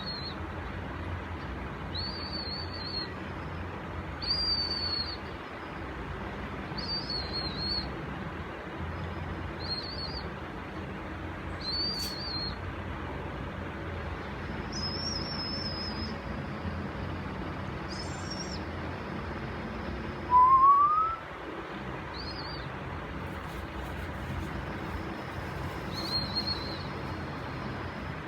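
A bird's short, high whistled chirps, each under a second and slightly wavering, repeating every two to three seconds over a steady low hum. About twenty seconds in, one short, louder whistle rises in pitch.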